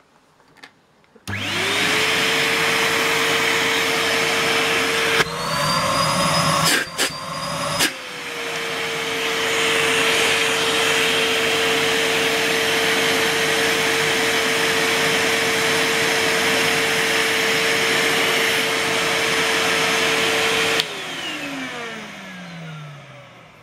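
Numatic Henry HVR160 tub vacuum cleaner switched on about a second in and running steadily. Its motor pitch rises briefly, with a couple of knocks, between about five and eight seconds in. It is switched off near the end, the motor winding down with a falling whine.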